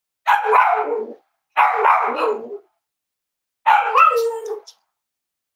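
Cavalier King Charles spaniel barking: three drawn-out barks, each about a second long, with short pauses between them.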